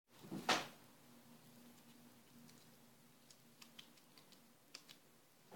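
A hand handling paper on a wall: one louder paper rustle about half a second in, then faint light taps and clicks as a magazine cut-out is pressed onto the sheet.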